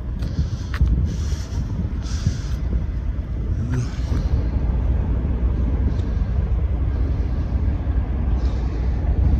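Wind buffeting the microphone: a steady low rumble, with several brief hissing gusts over it.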